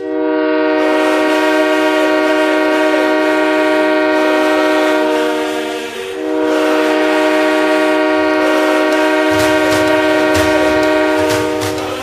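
Ice hockey arena goal horn blowing a loud chord in two long blasts of about six seconds each, with a short break between them. A low, steady beat comes in underneath about nine seconds in.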